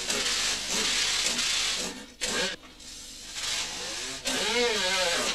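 Compressed-air rocker shovel loader working, its air exhaust hissing loudly in two long stretches with a short break about two seconds in; a wavering pitched whine rides on the second stretch.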